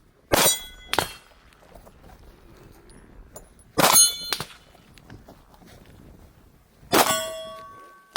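Metal target plate hit three times, about three seconds apart, each strike giving a loud clang that rings briefly. A smaller knock follows the first two, and the last rings on longest.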